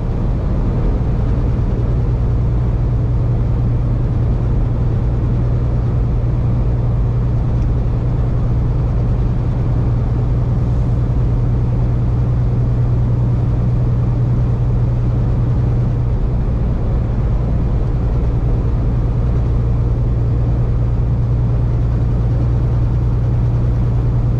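Semi truck's diesel engine and tyre noise heard from inside the cab while cruising at a steady highway speed: an even, low drone with no change in pitch.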